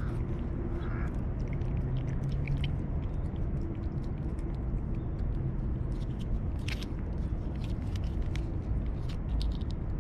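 Cat licking and smacking at a paste treat squeezed from a tube, a quick, irregular run of wet tongue clicks and chewing smacks.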